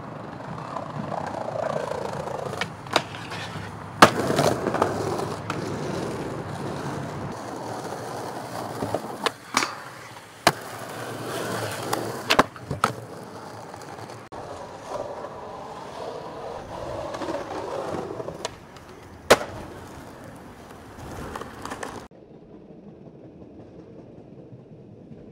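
Skateboard wheels rolling on pavement, broken by several sharp clacks of the board popping and landing tricks. Near the end the rolling stops and only faint street ambience is left.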